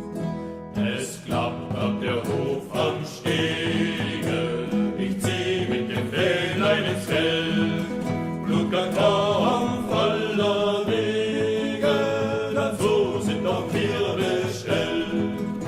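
A choir singing a German marching folk song, accompanied by strummed and plucked acoustic guitar. The guitar is heard alone at first, and the voices come in after a few seconds.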